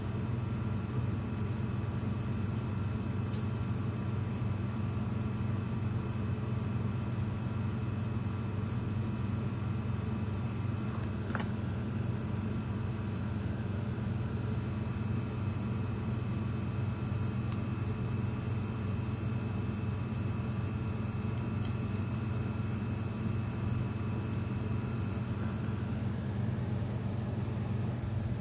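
Steady low machine hum with a few faint, thin steady tones above it, unchanging throughout; a single short click about eleven seconds in.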